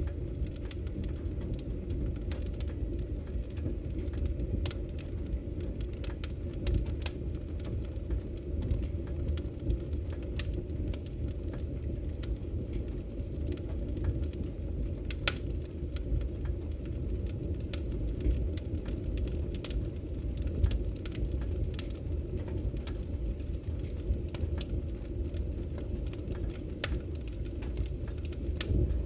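Wood fire in a fireplace crackling, with scattered sharp pops and snaps over a steady low rumble.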